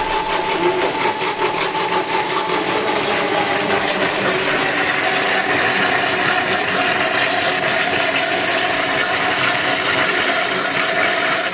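Electric blender running steadily while oil is poured in to make mayonnaise. Its motor pitch sinks slowly as the mixture thickens into an emulsion.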